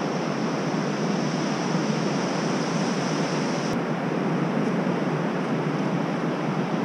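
Steady rush of ocean surf breaking on a sandy beach, with one short click a little past halfway.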